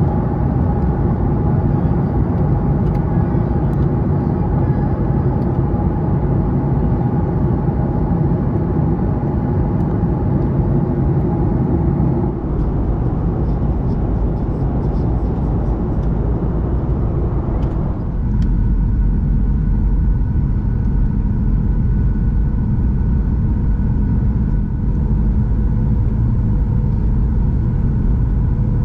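Boeing 737-800 heard from inside the passenger cabin: a steady, loud rush of jet engine and airflow noise with a low rumble and a faint hum of steady tones above it. The sound shifts abruptly about 12 seconds in and again about 18 seconds in.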